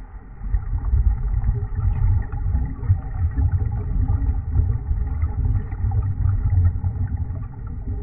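Scuba diver exhaling through the regulator underwater: a low, bubbling rumble that swells about half a second in and fades near the end.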